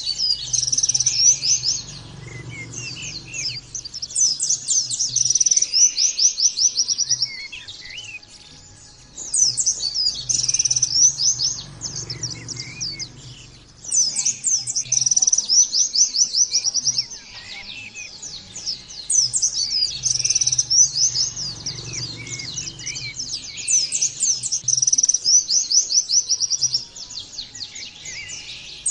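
White-eye (pleci) singing: long runs of fast, high-pitched chattering notes, each lasting several seconds and repeating after short pauses.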